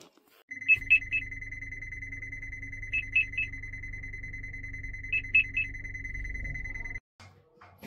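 Electronic alarm-like sound: a steady high tone with three quick beeps repeating about every two seconds, over a low hum, cutting off abruptly near the end.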